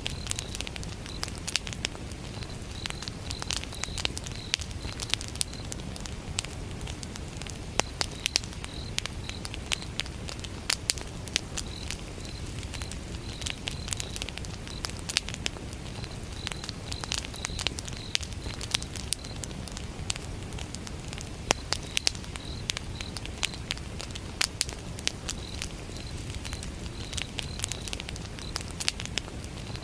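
Wood fire burning, with frequent sharp crackles and pops over a low steady rumble. Crickets chirp in short, evenly spaced pulses that come in bouts and pause.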